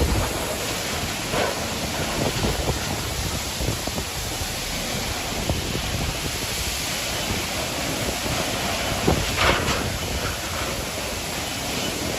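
Storm noise: a steady rush of wind and water, with a couple of brief knocks.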